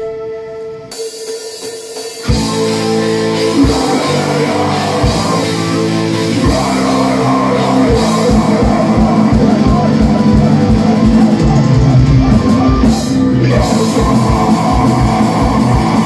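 Live metal band with flute playing a song: a held flute note, then about two seconds in the full band comes in with distorted guitars and drums. From about six seconds in the kick drum plays rapid, even strokes under the guitars.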